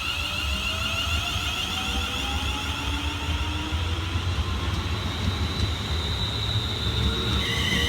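Train at a station, its traction motors whining and rising slowly in pitch, over a low rumble.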